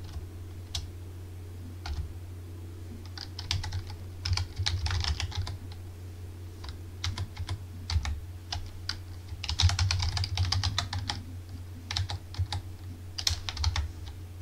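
Computer keyboard typing: irregular runs of keystrokes with short pauses between them, over a steady low hum.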